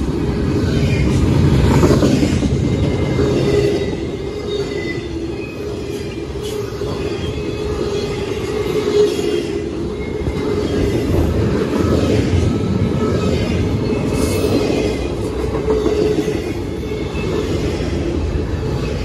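Double-stack intermodal freight train's well cars rolling past: a steady rumble of steel wheels on the rails, with faint thin wheel squeals coming and going.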